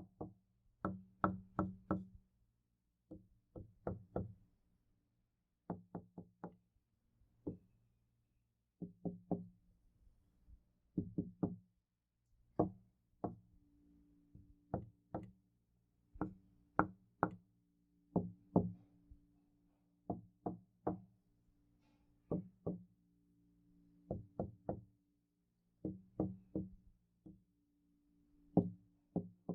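Knocking on a door in short series of two to five raps with brief pauses between them. A low ring lingers after each group of knocks.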